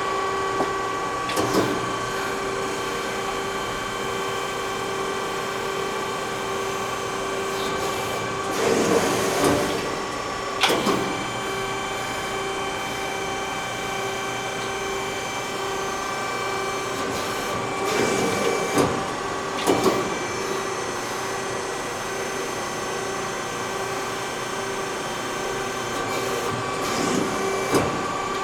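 Amada 138-ton CNC hydraulic press brake running through its cycle: a steady hydraulic pump whine, broken every several seconds by louder surges and clunks as the ram and multi-axis back gauge move.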